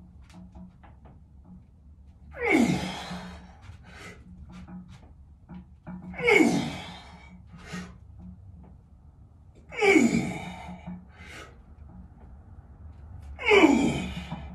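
A man's loud, forceful breaths of effort with each rep of a barbell overhead press, four times about three and a half seconds apart, each starting high and dropping in pitch as he pushes the bar up.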